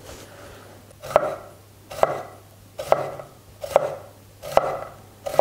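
A kitchen knife slices a small cucumber into sticks on a wooden cutting board. There are six even strokes, a little under one a second, starting about a second in. Each is a short slicing sound ending in a sharp tap of the blade on the board.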